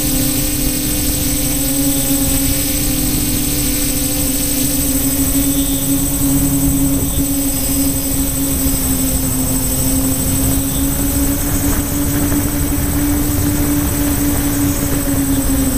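Locust quadcopter's electric motors and propellers humming steadily in flight, heard from the onboard camera, with a low rush of wind on the microphone. The pitch wavers slightly as the throttle shifts.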